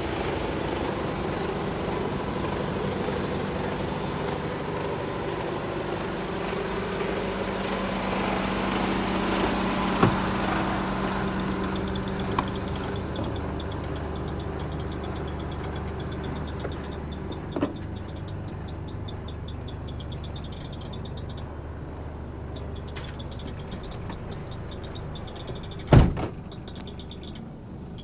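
Mercedes Actros 1843's straight-six diesel engine idling steadily, growing fainter, with a thin high whine over the first half and a few light clicks. A single sharp knock sounds near the end.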